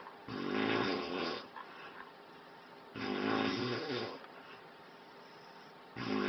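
A person snoring: three snores about three seconds apart, each lasting about a second, the last starting near the end. The snoring is of the positional kind, which comes from sleeping on the back.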